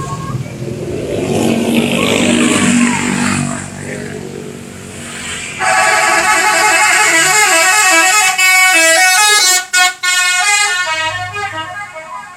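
A bus passes, and about five and a half seconds in its telolet horn starts: a set of musical air horns playing a fast, stepping multi-note tune, long and loud. The tune cuts out briefly about ten seconds in and fades near the end.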